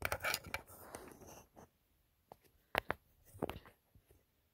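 Handling noise on a phone as a charging cable is worked into it: rustling for about a second and a half, then a few short, sharp clicks.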